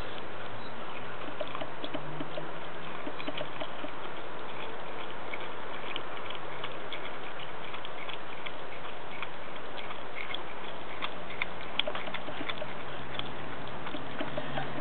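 Groenendael puppy chewing and tearing at raw green tripe: irregular small clicks and smacks of eating over a steady background hiss.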